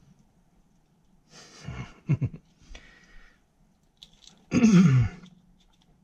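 A man's short, breathy vocal sounds: a brief pair about a second and a half in, then a louder one about four and a half seconds in that falls in pitch.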